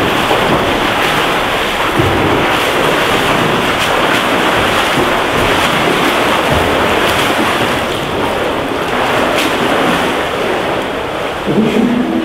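Swimmers splashing through their strokes in an indoor pool, a steady wash of churning water.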